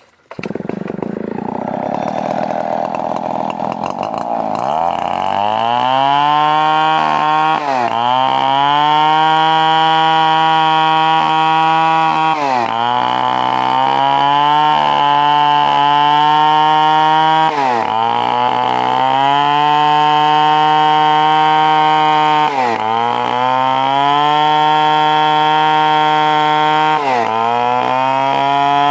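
Stihl 070 two-stroke chainsaw cutting timber. It starts loud and rough, and a few seconds in settles into a steady high engine note. About every four to five seconds the pitch sags briefly and climbs back as the chain takes the load.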